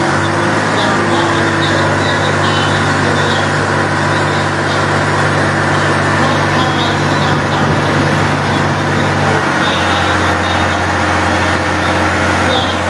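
Steady motor-vehicle engine and road noise; the low engine hum shifts in pitch about nine and a half seconds in.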